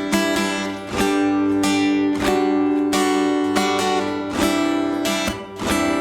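Acoustic guitars strumming chords in an even rhythm, the chords ringing between strokes, with no singing yet.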